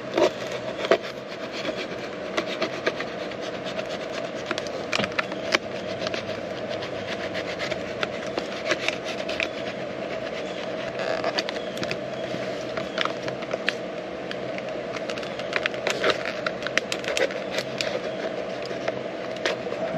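Stiff plastic multimeter packaging being cut open around its heat seals, with a run of irregular crackling, snapping and scraping clicks.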